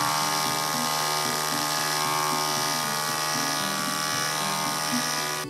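3D-printed PET-G vibratory tumbler running on its DC motor, its bowl of sandblasting sand shaking: a steady buzzing hum with a hiss over it.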